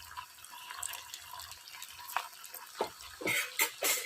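Hot oil sizzling with a steady hiss and light crackle as slices of boiled taro root deep-fry, with a few louder pops and splutters in the last two seconds.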